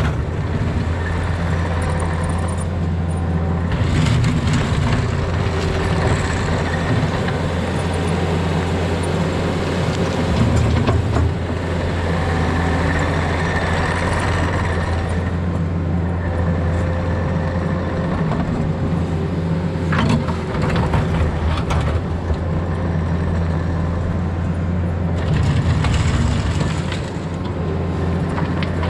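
Diesel engine of a Takeuchi compact earthmoving machine running steadily under work. The engine note swells several times, with a few sharp knocks.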